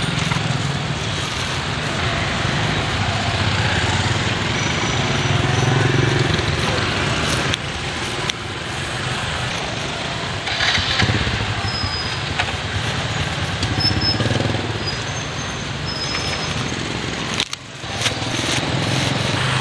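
Busy street traffic: a steady low rumble of passing motorbikes and cars that swells and fades, with faint voices in the background.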